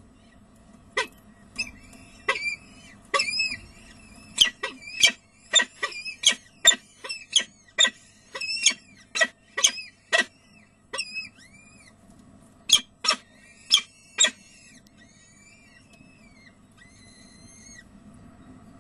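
Peregrine falcons calling at the nest during a feeding of the downy chicks: a run of short, sharp calls, about two a second, then a few fainter thin calls near the end.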